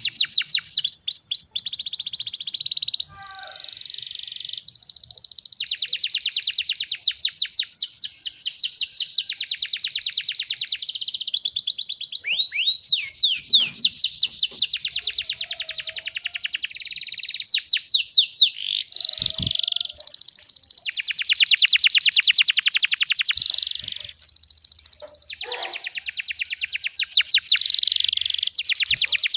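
Domestic canary singing a long song of tightly packed, rapid-fire trills: fast runs of high repeated notes, some sweeping down in pitch. There are short pauses about three seconds in and again near 24 seconds.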